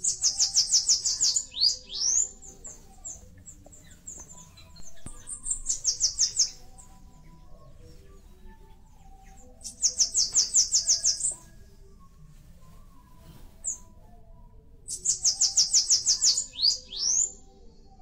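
Bananaquit singing: four songs, each a rapid run of high, thin notes lasting about a second and a half and ending in a few quick slurred notes, repeated about every five seconds.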